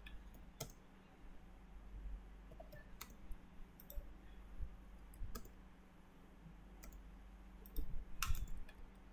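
Faint, irregular clicks of a computer mouse and keyboard, a handful spread over several seconds with a small cluster near the end.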